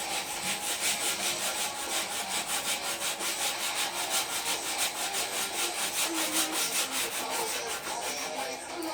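Sandpaper rubbed by hand in quick, even back-and-forth strokes over the paint of a bicycle frame.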